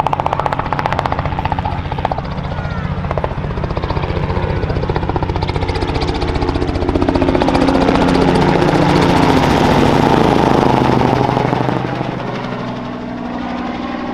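Robinson R44 Raven II helicopter flying past close overhead: rapid rotor beat over the running six-cylinder Lycoming IO-540 engine. It grows louder to a peak a little over halfway through, then fades, its pitch dropping as it passes.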